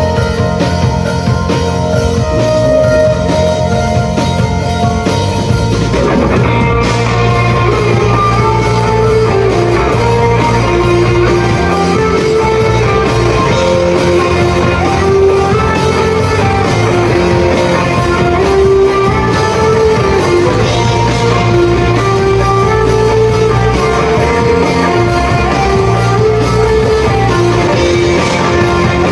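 Live band playing rock music, with a guitar melody over bass and drums.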